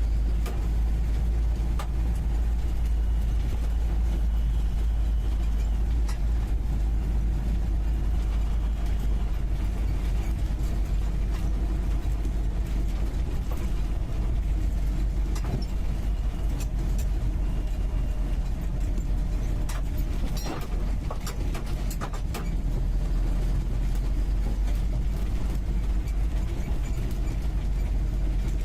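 UAZ 469B's four-cylinder petrol engine running, heard from the passenger seat inside the cabin: a steady low drone, with a cluster of short rattles and knocks about two-thirds of the way through.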